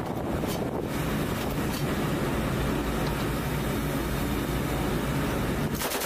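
Patrol boat running at speed: steady engine and water noise with wind buffeting the microphone. It drops out briefly just before the end.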